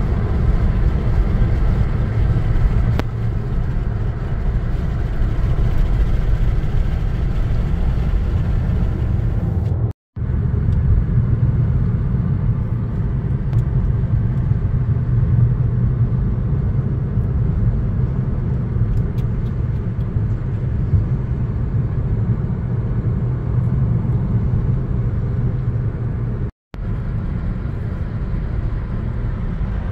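Steady low rumble of road and engine noise inside a moving car's cabin. The sound cuts out for a split second twice.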